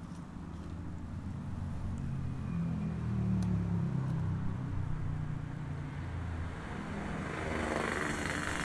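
Motor vehicle engine running with a low rumble that swells in the middle and again near the end, with a couple of faint clicks.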